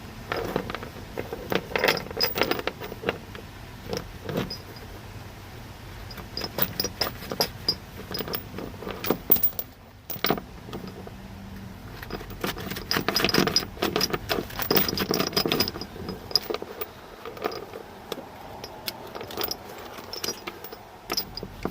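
Tie-down chain links clinking and rattling in irregular bursts while a thick strap is sawed free of the chain with a serrated pocket knife.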